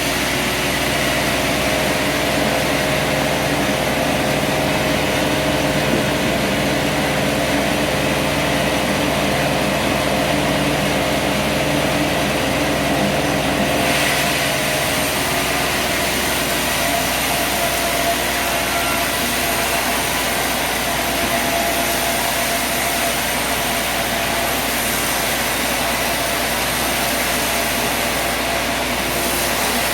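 Sawmill running steadily with its engine tones; about halfway through the sound changes, a brighter hiss coming in as the lower engine tones fall away.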